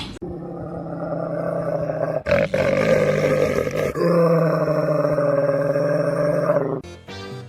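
Cat yowling with a growl in three long, drawn-out low calls, the last and longest about three seconds.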